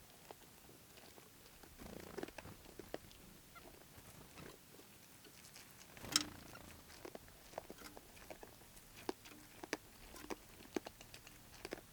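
Young deer chewing corn: faint, irregular crunching clicks, with one louder crunch about six seconds in.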